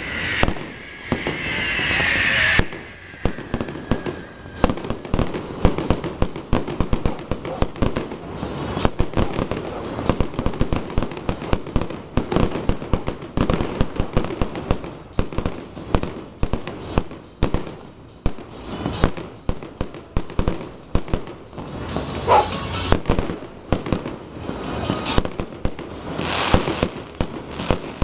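Aerial fireworks display: a rapid, unbroken run of bangs and crackles as shells burst. A hissing whistle falls in pitch in the first couple of seconds, and another short whistle comes about 22 seconds in.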